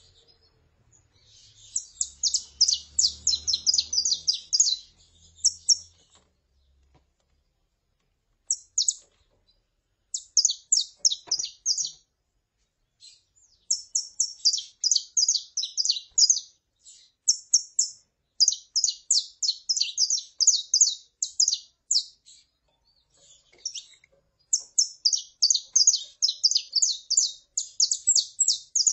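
Saffron finches (canário-da-terra) vocalizing: phrases of rapid, high chirping notes, each one to four seconds long, with short pauses between them.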